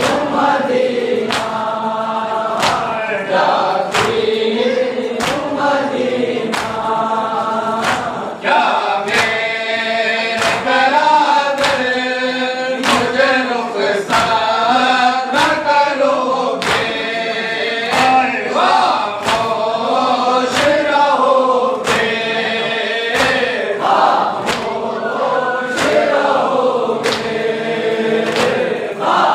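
A group of men chanting a noha, a Shia lament, in unison. Hands slap against chests in matam, keeping an even beat a little faster than one stroke a second.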